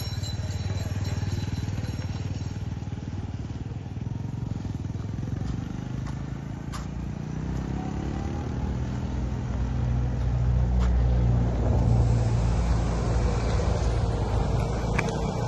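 Road traffic with a steady low rumble; about halfway through, a motorcycle engine rises in pitch as it passes, and the rumble grows louder toward the end.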